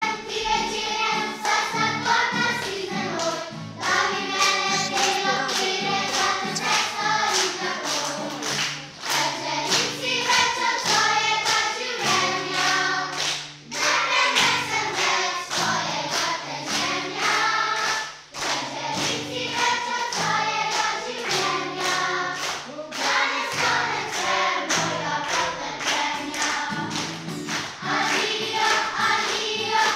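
A group of children singing a song together to an acoustic guitar, clapping along to a steady beat.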